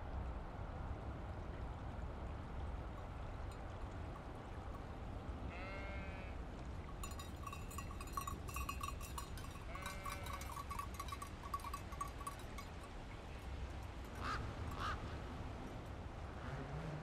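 Faint rural ambience: a steady low wind rumble with a sheep bleating twice, a few seconds apart. Between the bleats comes a run of quick high-pitched pulses, and near the end two short rising chirps.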